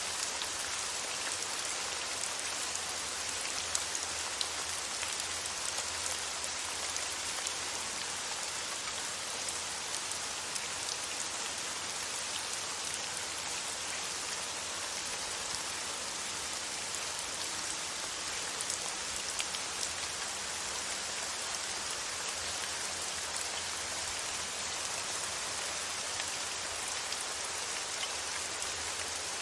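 Steady rain falling on a surface, an even hiss with scattered individual drop ticks, unchanging throughout.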